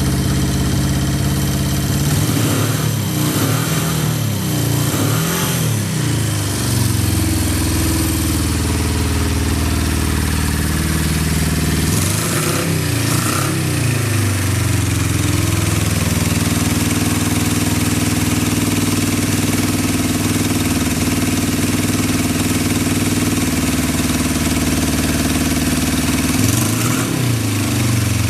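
Honda CB550's air-cooled inline four-cylinder engine idling steadily, with the throttle blipped several times so the revs rise and fall. The seller describes it as idling stably with no abnormal noises.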